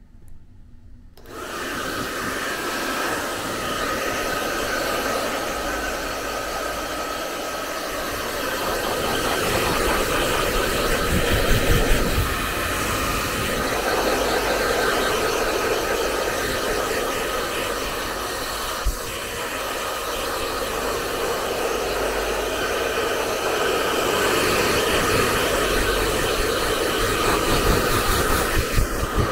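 Handheld electric hair dryer switched on about a second in, then blowing steadily as it dries a baby monkey's fur.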